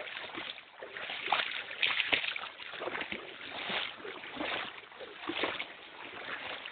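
Water splashing and sloshing in irregular surges, as of movement through shallow water.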